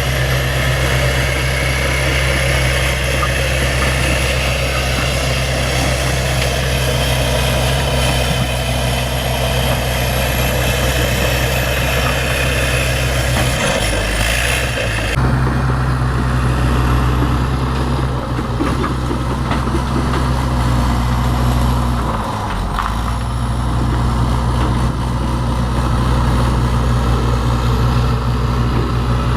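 Bulldozer's diesel engine running steadily, its pitch dipping briefly twice.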